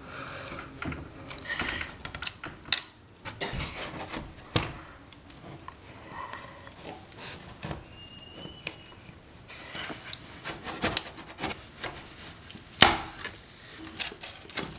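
Thin wooden trim strips around a French door's glass pane being pried loose with a metal 5-in-1 painter's tool: irregular scrapes, clicks and sharp cracks of wood as the tool works into the gap. The loudest crack comes a little before the end.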